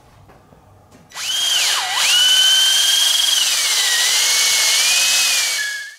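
Cordless drill spinning a rod reamer inside a rod grip to open up its bore. The motor whine starts about a second in and dips sharply in pitch almost at once before recovering. It then holds steady, drops lower and wavers as the reamer works, and stops near the end.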